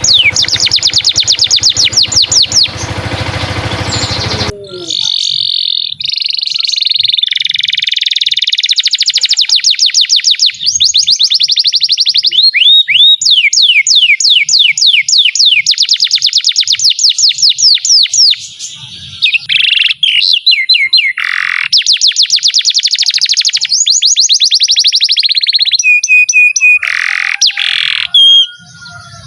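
Domestic canary singing a long, unbroken song of rolling trills: fast runs of repeated sweeping notes several per second, alternating with steady held tones and short buzzy phrases. A low rumbling noise lies under the song for the first few seconds and cuts off suddenly.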